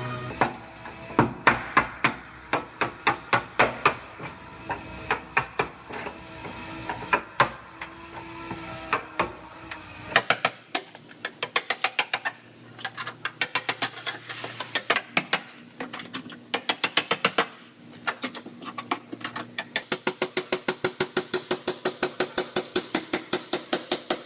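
A hammer striking sheet-metal car body panels. The blows come in irregular runs and speed up to about five light, even blows a second near the end.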